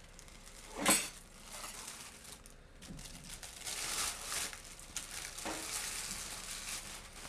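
A plastic baking bag crinkling and rustling as baked potato pieces and meat slide out of it into an enamel bowl, with a sharp knock about a second in.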